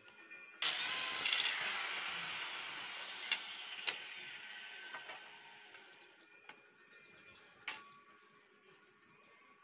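A handheld electric circular saw starts cutting a plywood strip suddenly about half a second in, then runs down and fades away over several seconds. A few sharp clacks of plywood strips being handled follow, the loudest near the end.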